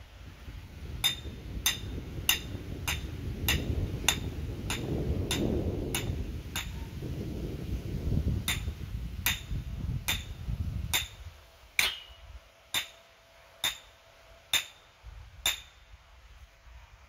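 Hammer striking a metal stake in steady, ringing blows, about one every half second, driving it into the ground to anchor a canopy leg; the blows pause briefly midway and slow to about one a second near the end. A low rumble runs beneath the first two-thirds and stops about eleven seconds in.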